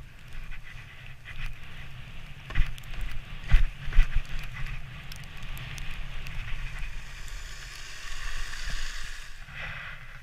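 Wooden sledge's runners hissing over packed snow as it slides downhill, with a low rumble of wind. Three sharp knocks from bumps in the track come between about two and a half and four seconds in, the loudest moments.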